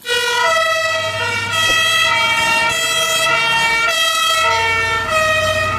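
Toy fire engine's battery-powered electronic siren sounding, a buzzy synthetic tone that steps between two pitches.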